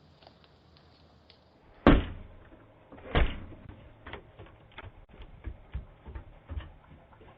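Two heavy thumps about a second apart, then a run of lighter knocks and clicks.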